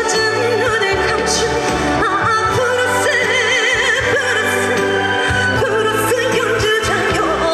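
Live trot song: a woman singing with strong vibrato over a backing track with a steady bass line.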